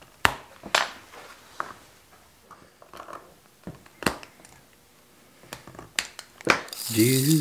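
Scattered light clicks and taps as a leather knife sheath and small leatherworking tools are handled on a workbench, with a short scraping rustle near the end.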